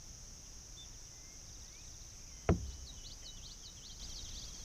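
Steady high-pitched drone of insects such as crickets, with one sharp knock about halfway through and a quick run of short chirps near the end.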